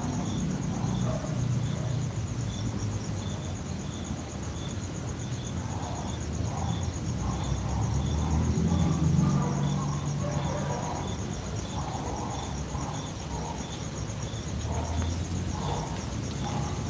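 Crickets chirping: a continuous high trill with a second, lower chirp repeating evenly about twice a second, over a low rumble.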